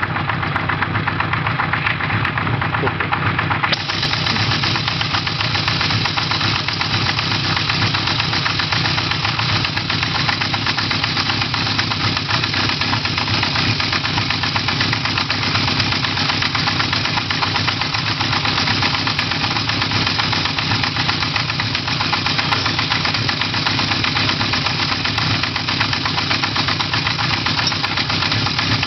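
Honda CB1100F's air-cooled inline-four engine running steadily, with an abnormal noise coming from the engine.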